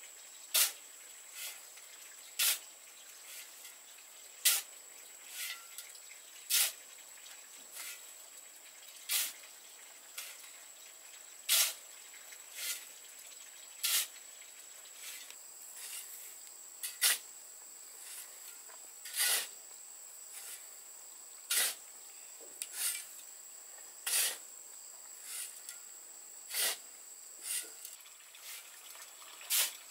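Shovel scraping through a dry cement and sand mix on bare ground, a short stroke about every two seconds, with some lighter scrapes in between. A thin steady high tone runs behind it.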